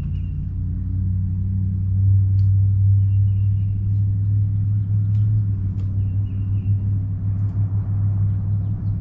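Steady low drone of a running engine from working machinery. A faint high-pitched tone comes and goes every few seconds, with a few light ticks.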